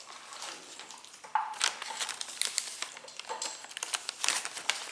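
Irregular crinkling and crackling of food packaging being handled during a meal, made of many short sharp crackles.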